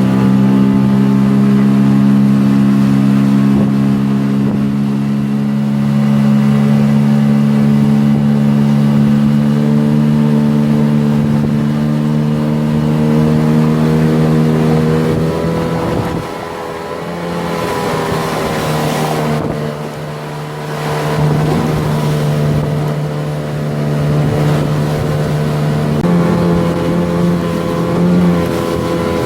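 9.8 hp outboard motor running steadily on a small boat under way. Its note changes about halfway through, drops briefly, and steps up again near the end as the throttle is changed.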